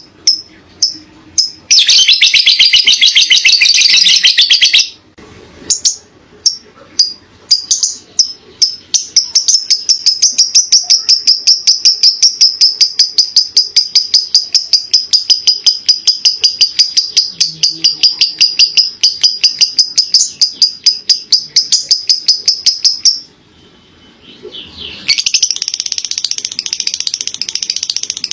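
Lovebird singing its ngekek: sharp repeated chirps and a loud burst of rapid chatter, then a long, fast, rattling trill held for about fifteen seconds. After a short break it goes into dense chatter again near the end.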